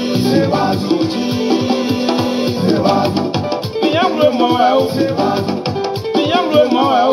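Upbeat dance song with a steady beat and held instrumental notes, a voice singing from about four seconds in.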